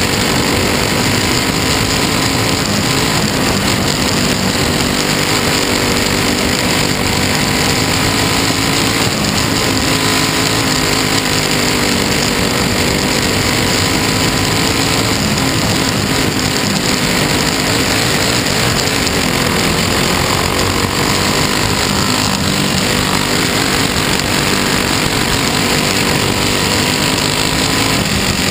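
Dirt track race car's engine under racing load, heard from inside the caged cockpit: loud and continuous, its pitch rising and falling slightly as the car laps the oval.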